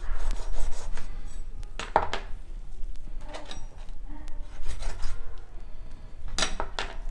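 A large broad-bladed knife sawing and scraping at a raw pork leg on a plastic chopping board, with several sharp knocks of the blade on the board, the loudest a pair near the end. The blade is not getting through the bone.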